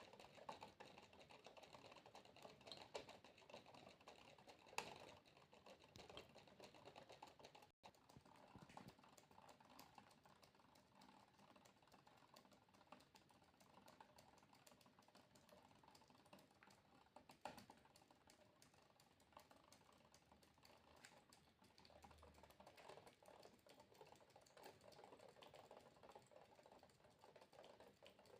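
Water droplets dripping: a soft, dense, irregular run of faint small ticks and plinks, with a momentary dropout about eight seconds in.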